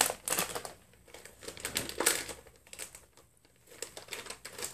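Plastic-foil blind-bag toy packet crinkling and rustling as it is handled and pulled open. The crinkling is loudest in the first second and again about two seconds in, then goes quieter with scattered small crackles.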